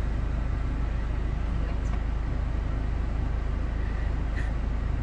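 Steady low rumble of a van's cabin with the vehicle running, a constant deep hum under a faint even hiss.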